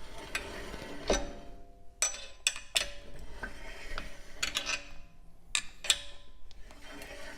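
Front brake rotor of a Tesla being turned by hand, giving irregular metallic clicks and ticks, several followed by brief ringing. The sound comes from a small rock or other road debris caught behind the rotor near the dust shield.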